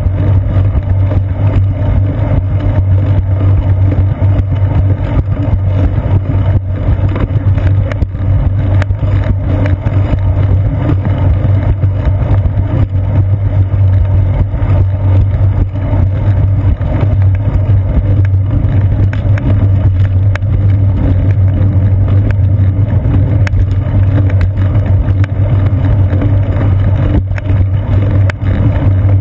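Steady low rumble of a moving bicycle on a concrete sidewalk, heard through a seat-post-mounted GoPro Hero 2 in its housing, mixed with wind noise and constant small rattling knocks from the ride.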